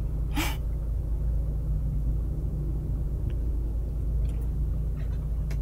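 Steady low rumble of a survey boat's engine running on the water, with a brief hiss about half a second in.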